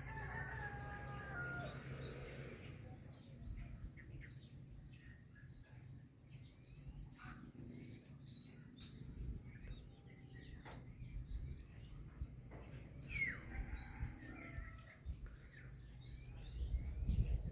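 Rural outdoor ambience: scattered faint bird chirps and calls, one long slightly falling call in the first second or two, over a steady high-pitched insect drone and a low wind rumble.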